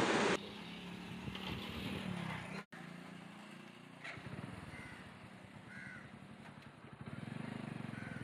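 Outdoor ambience: a low, steady rumble of distant traffic, with two faint short bird calls past the middle.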